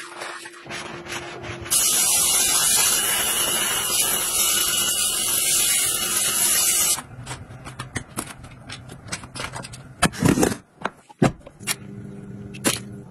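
A soapy bath sponge being squeezed and rubbed, then a shower spray hissing steadily for about five seconds, starting and stopping abruptly. After it come scattered wet taps and clicks, and a low hum begins near the end.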